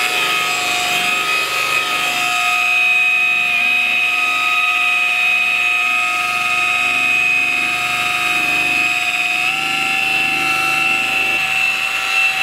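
High-speed variable-speed rotary buffer running steadily, with a yellow wool pad working cutting compound into wet-sanded car paint: the first cutting stage of buffing. A steady motor whine whose pitch steps up slightly about three-quarters of the way through.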